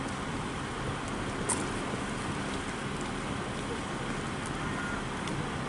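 Steady hiss of rain falling, with a faint click about a second and a half in.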